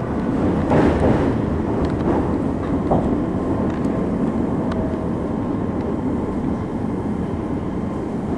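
Meitetsu electric train running, heard from inside the car: a steady low rumble of wheels on rail with a few faint clicks, easing off slightly toward the end.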